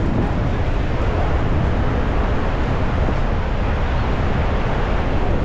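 Steady roar of water pouring over Niagara's Horseshoe Falls, mixed with wind rumbling on the microphone.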